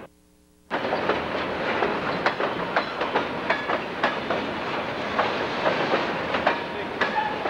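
Freight train of boxcars rolling past, its steel wheels clattering with frequent clicks and knocks over the rail joints. The sound starts under a second in, after a brief near-silent gap.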